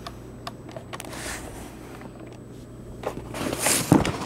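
Handling noise from a handheld camera being moved: soft rustling and a few light clicks, then a louder rustle ending in a low thump near the end, over a low steady hum.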